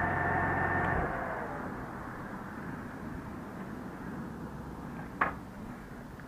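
BMW K1600 GT's inline-six running with a steady whine, cut off about a second in and winding down. A single sharp click follows near the end.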